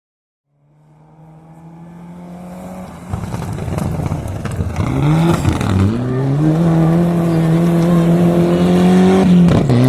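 Rally car's engine approaching at speed, growing steadily louder from faint to loud. Its note dips and climbs back about halfway through, and drops sharply again near the end with a gear change.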